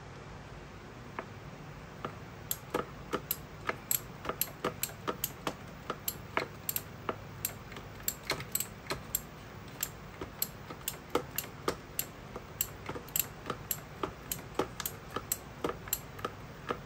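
Hand ratchet and socket being worked on a fastener, the pawl clicking on each back stroke. Sharp clicks start about two seconds in and go on at about two to three a second, a little unevenly.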